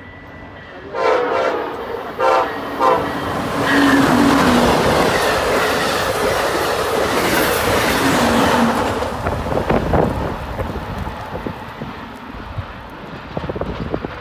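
Amtrak passenger train sounding its horn in three blasts, the first longest, then passing close by at speed, loud, with the wheel clatter dying away as the last cars go by.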